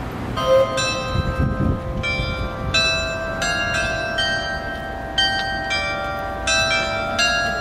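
Clock tower bells chiming a tune: a new bell note struck about every half second to second, each ringing on under the next, over a low street rumble.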